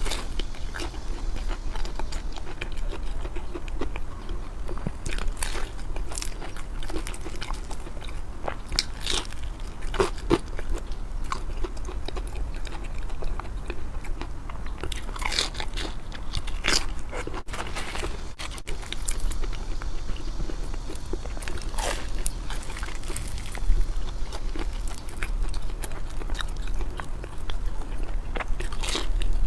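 Close-miked eating: a person biting and chewing food, with crisp crunches and clicks coming at irregular moments throughout, over a steady low hum.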